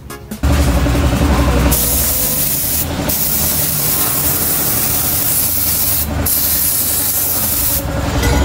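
Air spray gun hissing in three long bursts as primer paint is sprayed, over a low steady rumble.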